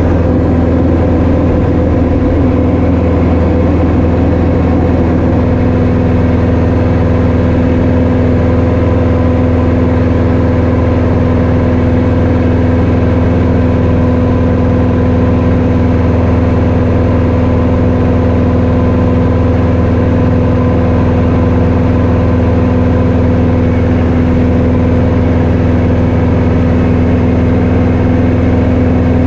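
Light training aircraft's piston engine and propeller running at constant power: a steady, unbroken drone with a fixed hum.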